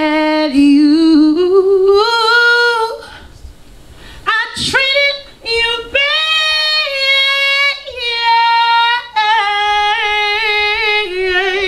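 A woman singing solo and unaccompanied into a handheld microphone. She holds long, sliding notes with vibrato, breaks off about three seconds in, and comes back in about a second and a half later.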